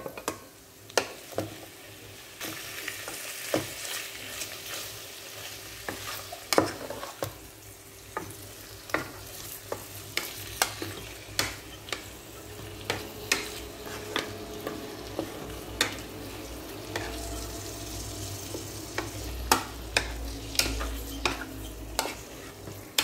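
Pieces of meat frying in oil with sautéed garlic and onion in a rice cooker's inner pot, a steady sizzle. The meat is being stirred, and the utensil clicks against the pot about once a second.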